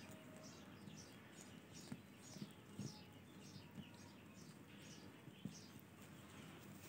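Baby ringneck parakeets chirping faintly: a steady series of short, high, falling chirps, about two to three a second, typical of chicks begging for food. A few soft knocks sound under the chirps.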